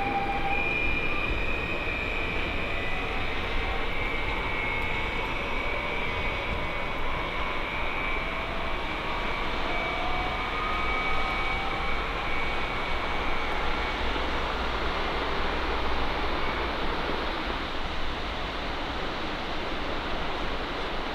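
A Stadler passenger train running, its motors whining at several pitches that slowly drift over a steady rumble.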